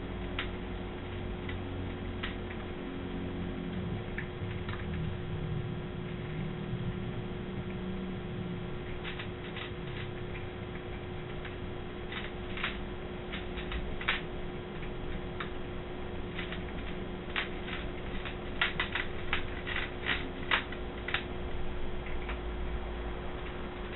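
Cats eating from their food bowls: irregular small clicks and ticks that come in loose clusters, thickest about eighteen to twenty-one seconds in. A steady low hum runs underneath.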